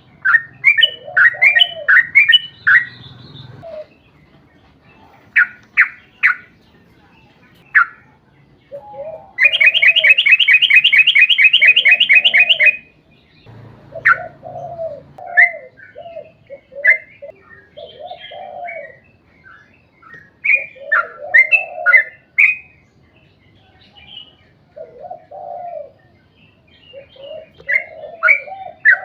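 Yellow-vented bulbul (trucuk) singing: bursts of short, bubbly chirping notes, with a long, very rapid trill of about three seconds near the middle. Lower, rounded notes repeat underneath throughout.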